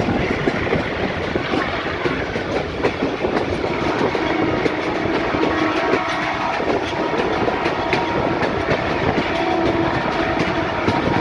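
Train running on the track: a steady rumble with the wheels clicking over the rail joints, and faint thin squealing tones coming and going.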